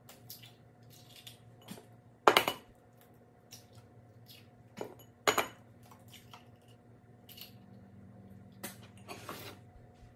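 Eggs being cracked against the rim of a blender jar: a few sharp knocks, the loudest about two seconds in and another about five seconds in, with lighter clicks between.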